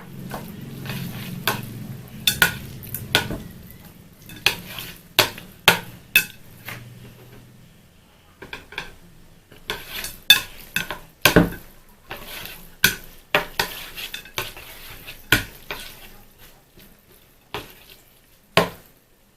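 A utensil clacking and scraping against a bowl as instant fried noodles are stirred to mix in the seasoning and oil, in irregular strokes. A low hum sits under the first half and fades out.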